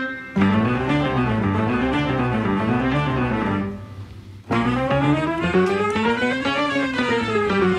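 Instrumental background music with a melody that rises and falls, dropping out briefly just after the start and again for under a second in the middle.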